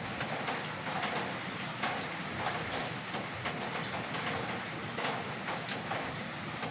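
Light rain falling, a steady patter with many separate drops tapping on a surface.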